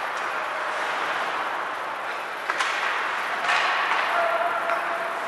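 Sound of an ice hockey game in a rink: a steady wash of rink and crowd noise, broken by two sharp cracks from play on the ice about halfway through, a second apart.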